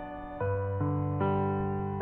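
Background music: slow, sustained keyboard notes, with a new note struck three times in the first part, roughly every half second.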